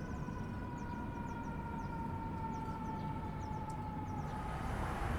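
City ambience: a long, siren-like tone that slides slowly down in pitch, over low traffic rumble, with short high bird chirps. Near the end the tone stops and louder rushing noise takes over.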